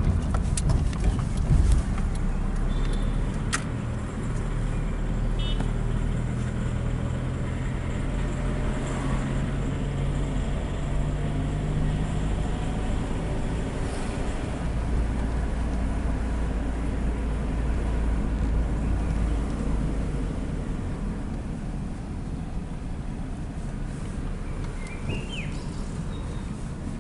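Nissan Primera driving slowly, heard from inside the cabin: a steady low engine and tyre-on-road rumble, the engine note shifting in pitch with speed.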